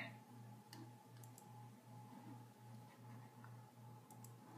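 Near silence: room tone with a low, pulsing hum and a few faint clicks, twice in quick pairs.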